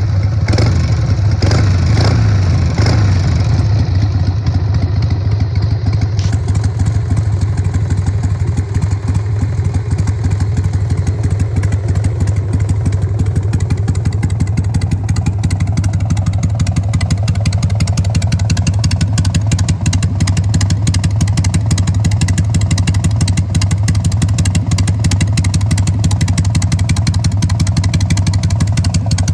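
2002 Harley-Davidson Sportster XLH883's rigid-mounted, carbureted, air-cooled OHV V-twin idling with a steady, uneven beat. A few louder pulses come in the first three seconds before it settles.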